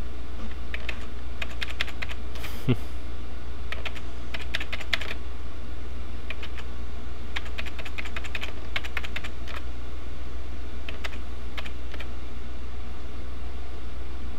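Typing on a computer keyboard in several short bursts of rapid key clicks with pauses between, over a steady low hum.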